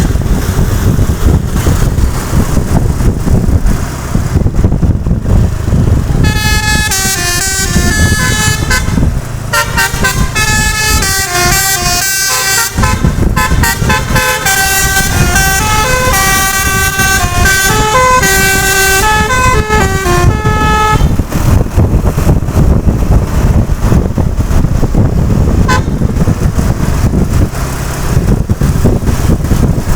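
A bus's telolet basuri horn playing a tune of stepping notes, starting about six seconds in and stopping about fifteen seconds later, over steady vehicle noise.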